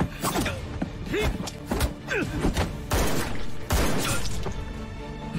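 Fight-scene sound effects: several sharp punch and body-blow impacts, about four in all, with men's grunts, over background music.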